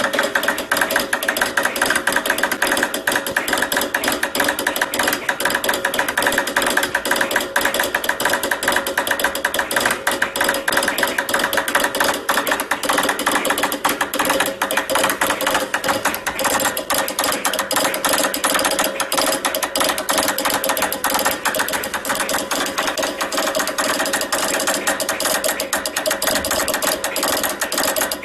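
Morse code sent at high speed on a straight key: a fast, unbroken rattle of key clicks.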